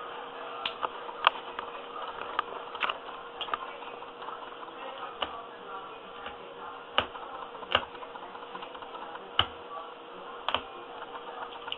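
Blade cutting through carpet and its backing, making scattered sharp clicks and snaps at irregular intervals, roughly one a second, over a faint steady hum.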